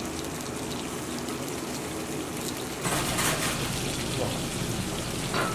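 Floured hairtail pieces sizzling as they pan-fry in oil, the sizzle growing louder about three seconds in.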